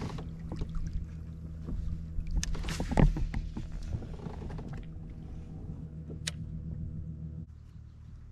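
A small electric motor hums steadily with several even tones and cuts off suddenly about seven and a half seconds in. A few light knocks and one louder thump about three seconds in.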